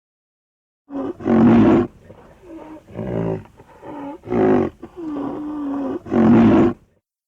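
Triceratops creature sound effect: a series of pitched roars and bellowing calls starting about a second in, three louder roars separated by softer grunting calls and one held, steady bellow.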